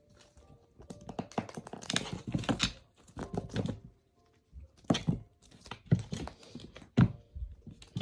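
A cat pouncing on and batting a small toy across a wooden floor: a flurry of scuffling, claw scratches and knocks, then a few separate sharp thumps in the second half.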